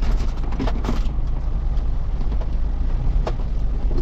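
Kia mini truck driving slowly, heard from inside the cab: a steady low engine and road rumble, with one sharp click a little over three seconds in.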